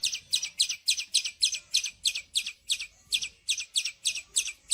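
Angry bird calls: a rapid, even run of short, high chirps, each dropping slightly in pitch, about five a second.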